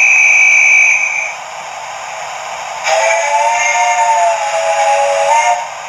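Hornby R3244TTS Duke of Gloucester model's TTS sound decoder, over a steady hiss, plays a guard's whistle: one shrill steady blast that stops about a second in. About two seconds later the locomotive's steam whistle answers with a lower chord of several notes lasting nearly three seconds.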